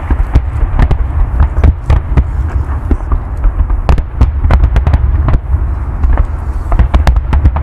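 Fireworks going off in a dense barrage: many sharp cracks and bangs, some in quick clusters, over a constant deep booming rumble, with the cracks thickest near the end.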